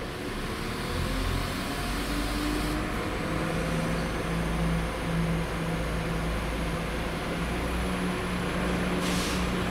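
Diesel train engine running: a low rumble with a steady hum that swells about a second in and then holds. There are short hisses near three seconds and near nine seconds.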